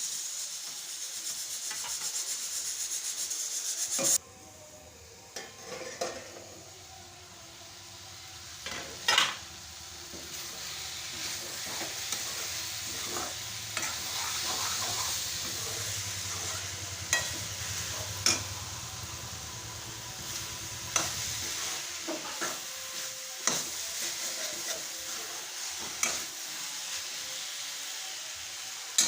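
Grated radish and potato frying in a pan with a steady sizzle, a spatula scraping and knocking against the pan now and then as it is stirred. The sizzle drops away suddenly about four seconds in, then builds back up.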